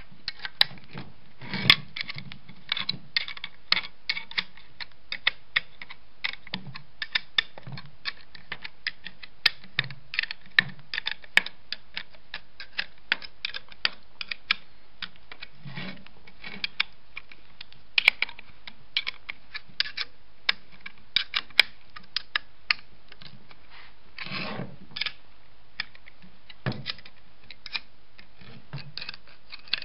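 Light metal clicks and taps at an uneven pace, a few a second, as the nuts on the end-plate bolts of a rebuilt electric starter motor are tightened with a small hand tool. A longer scrape and knock of metal being handled comes late on.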